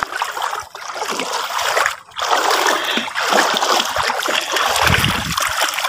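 Feet in flip-flops splashing and sloshing through shallow seawater, with a brief pause about two seconds in and a low rumble near the end.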